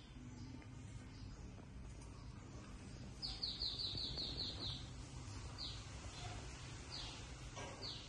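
Small bird chirping: a quick run of about eight high, falling chirps about three seconds in, then single chirps every second or so, over a steady low background rumble.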